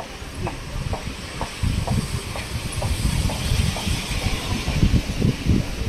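Steady hiss of traffic on wet roads, with a faint ticking about twice a second. From about two seconds in, uneven low rumbling gusts come in, like wind on the microphone.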